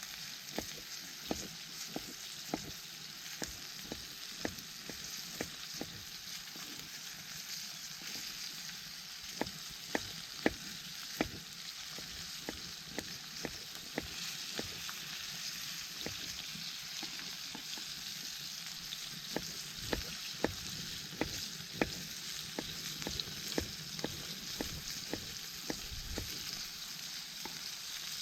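Food sizzling in a pan on a campfire: a steady frying hiss with frequent irregular sharp pops.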